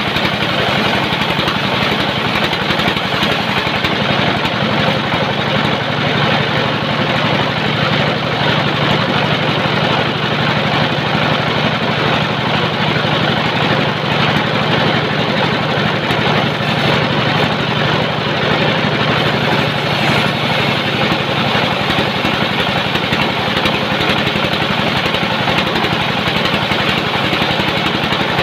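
Sawmill running steadily, a constant mechanical drone with no pauses or changes in speed.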